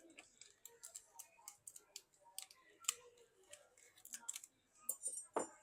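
Scattered light clicks and taps of fingers and tools handling a smartphone's internals as a replacement battery is set into the frame, louder near the end.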